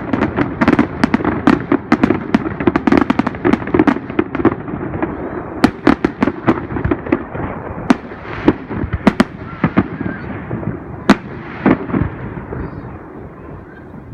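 Fireworks display: a rapid run of bangs and crackles over a steady rumble. It is densest for the first several seconds, then thins out, with the bangs growing sparser and the rumble quieter near the end.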